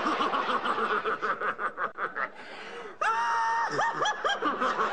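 Laughter, which dips for a moment a little past the middle and comes back louder at about three seconds.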